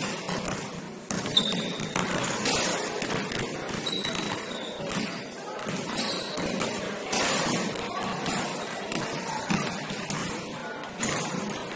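Basketball game play in a gym: a basketball bouncing on the court, a few brief high sneaker squeaks, and players' voices in a large hall.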